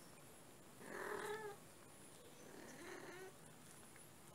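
A cat meowing twice: a louder, wavering call about a second in and a softer one near three seconds.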